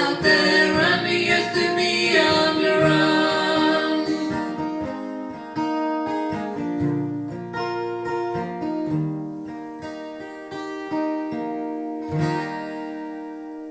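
Music: strummed acoustic guitar playing the song's instrumental ending, the sound dying away toward the end.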